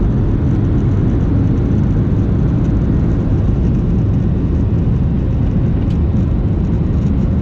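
Loud, steady rumble and roar of a Boeing 737's jet engines and airflow, heard inside the passenger cabin.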